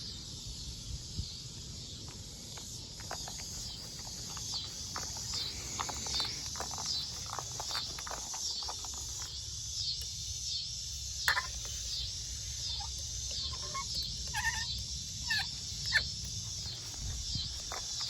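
Insects calling in a steady pulsing chorus, about one and a half high-pitched pulses a second, over a low wind rumble on the microphone, with a few scattered sharp clicks and short chirps.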